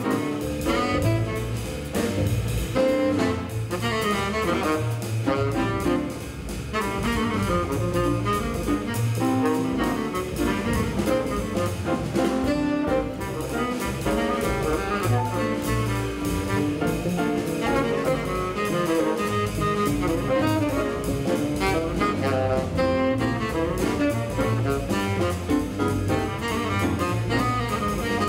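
Jazz quartet playing bebop: a tenor saxophone leads with a busy line over piano, upright bass and drum kit.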